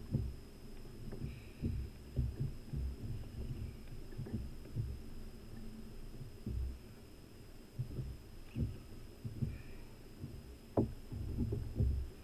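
Muffled, irregular low thumps and knocks of small waves slapping a plastic kayak hull, picked up through the hull-mounted camera, with a faint steady high whine underneath.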